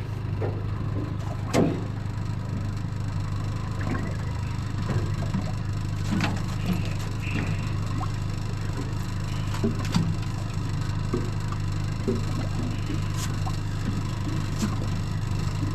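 Yamaha 75 outboard motor idling with a steady low hum, while gear knocks and clatters on the boat's deck now and then.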